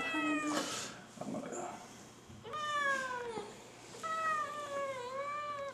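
Cat meowing in distress while restrained: a short meow at the start, then two long, drawn-out meows about two and a half and four seconds in, each sliding down in pitch.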